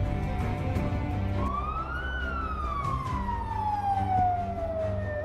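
A wailing siren over background music: about a second and a half in, the siren's pitch rises briefly, falls slowly for about three seconds, then starts rising again near the end.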